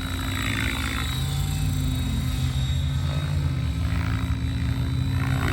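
Synergy 696 electric RC helicopter in flight: rotor blades and motor make a steady drone, with a whoosh that swells briefly near the start and again about four seconds in.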